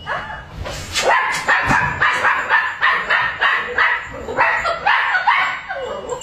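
Dachshund puppy barking in a rapid string of high-pitched yaps, about three a second.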